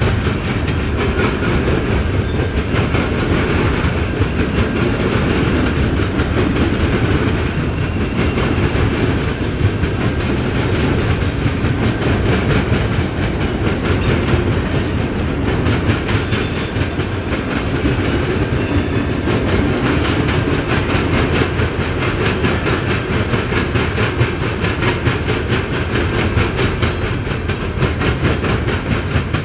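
Freight train cars rolling steadily past on the rails, a continuous loud rumble of steel wheels on track. A faint high squeal comes in briefly about halfway through.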